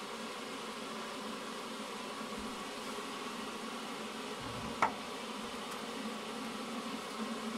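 Steady buzzing hum with a faint hiss as a pan of chicken chop suey cooks on a gas hob, broken by one sharp tick a little under five seconds in.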